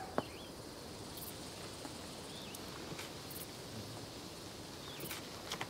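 Night-time field ambience of crickets chirring steadily, with a few short, high chirps scattered through it and a faint click or two.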